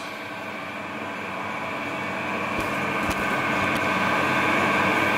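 Colchester Master 2500 metal lathe running, its motor and gear train giving a steady hum and whine that grows gradually louder, with a few faint clicks about midway.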